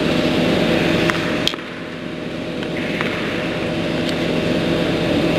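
Steady low mechanical hum made of several constant tones over a hiss, with a few faint ticks about a second in.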